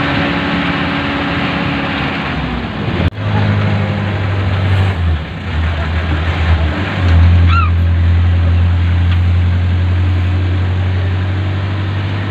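Vehicle engine running with road noise, heard from inside a vehicle with open windows. The engine drone grows louder about seven seconds in, and a short high chirp sounds just after.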